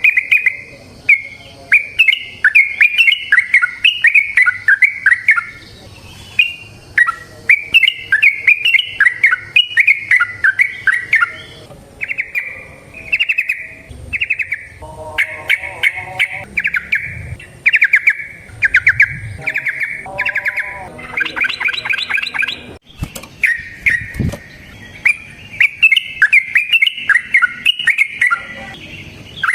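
Yellow-vented bulbul (trucukan) singing long runs of rapid, bubbly chattering phrases, repeated with short pauses between them.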